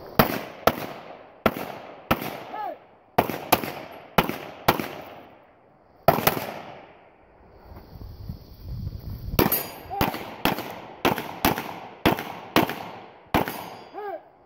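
Gunshots: about nine shots in the first six seconds, a gap of about three seconds, then a faster string of about nine pistol shots. A short ringing tone follows a few of the shots.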